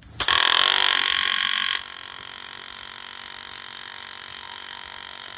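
Yamaha V-Star's electric fuel pump starting with a click and running with a high, steady whine and hiss. It is louder for about the first second and a half, then drops to a lower steady level. The pump is faulty and was found to be pushing fuel out of its air vent.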